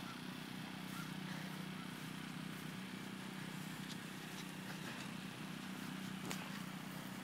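A steady low hum over faint outdoor background noise, with one faint click about six seconds in.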